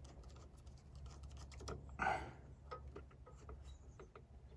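Faint small clicks and scrapes of a screwdriver working the fuel line clamp to loosen the fuel line at a generator carburetor, with one louder short scrape about two seconds in.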